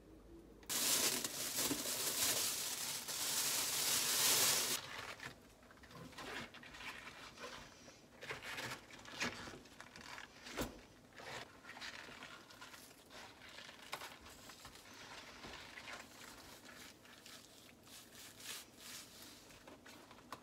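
A plastic sheet crinkling loudly for about four seconds as it is spread over salted napa cabbage halves. Then quieter handling of wet salted cabbage by rubber-gloved hands in a plastic basin: soft rustles with scattered taps.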